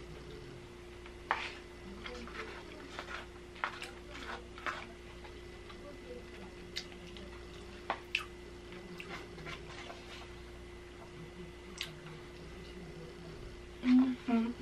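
Close-miked eating sounds: irregular wet chewing, mouth clicks and a fork clicking against a takeout bowl of rice. Near the end come a few short, loud closed-mouth hums.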